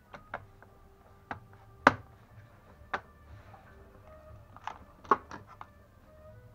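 Scattered sharp clicks and knocks of laptop parts being handled and fitted, the loudest about two seconds in and again about five seconds in, over faint background music.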